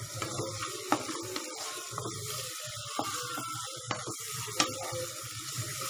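Oil sizzling as chopped onion, green chilli and curry leaves are sautéed in a pan, with a wooden spatula scraping and knocking against the pan now and then.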